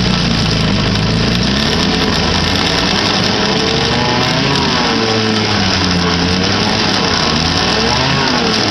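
1959 Kiekhaefer Mercury Mark 6A two-cylinder two-stroke outboard running steadily in a test barrel of water, its propeller churning the water; engine speed wavers slightly up and down. It is running on three-year-old fuel after decades without service.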